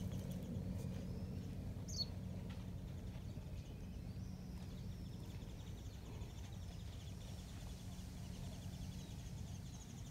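Outdoor ambience: a steady low hum, with a single short bird chirp about two seconds in and faint high chittering of birds later.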